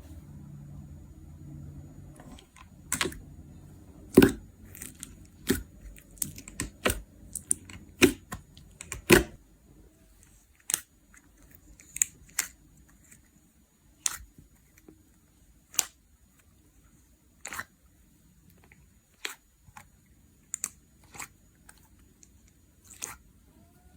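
Slime being pressed and poked by hand, making sharp, irregular clicks and pops, closely spaced for the first several seconds and then more scattered.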